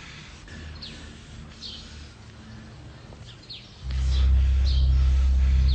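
Birds chirping in short, high, falling chirps about once a second over faint outdoor background. About four seconds in, loud, low, sustained background music comes in and takes over.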